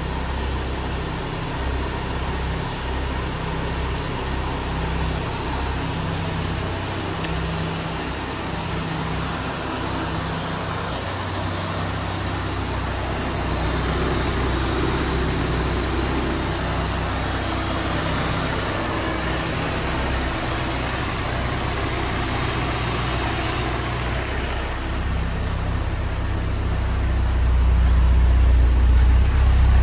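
Porsche 944 S2's 3.0-litre inline four-cylinder engine idling steadily just after a cold start. It grows louder and deeper near the end.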